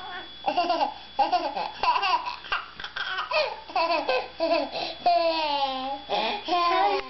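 A toddler laughing in a string of short giggles, then a longer high cry that falls in pitch about five seconds in.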